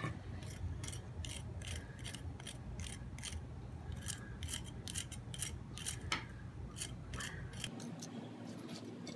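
Crispy fried batter of a chicken wing crackling and crunching as it is broken open with a fork, about three sharp crackles a second.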